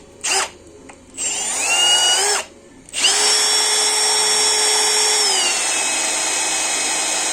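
Milwaukee M18 cordless drill, powered by a Makita 18V battery through an adapter, spinning with no load: a brief blip of the trigger, a short run-up with a rising whine that stops, then a longer steady run whose pitch drops a step a little past halfway.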